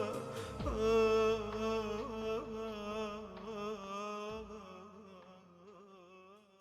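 Closing vocal music: a wordless chanted voice line, held and wavering in pitch, fading out near the end.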